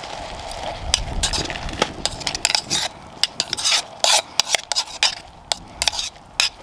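A metal spoon stirring and scraping food in a steel camping cup, a quick irregular run of clinks and scrapes, over a faint simmering hiss.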